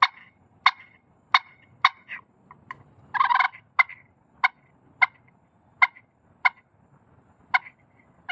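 Macassar ebony push-pin turkey call sounding a series of about a dozen short, sharp clucks, spaced half a second to a second apart, with one longer, raspier note about three seconds in.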